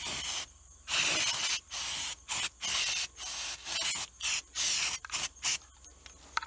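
Aerosol can of rubberized undercoating spraying in a series of short hissing bursts, several of them brief squirts, stopping about two-thirds of the way through.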